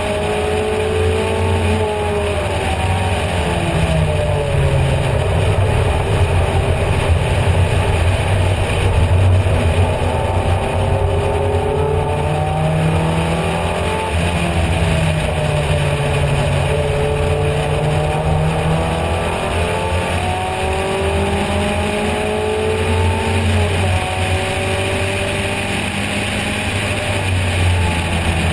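Triumph TR4 race car's four-cylinder engine at racing speed, heard from the open cockpit. The engine note climbs through the revs and drops back at each gear change, over constant wind and road rush.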